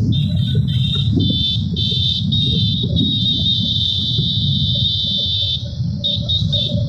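Wind buffeting the microphone and road rumble from a moving vehicle, with a high-pitched buzzing tone that comes and goes: in short pieces at first, then held for a couple of seconds, then short beeps near the end.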